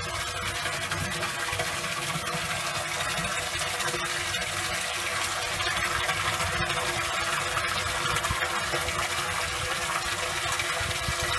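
Water gushing from a hose pipe into a partly filled plastic sprayer tank, a steady pouring and splashing into the liquid, over a faint steady hum.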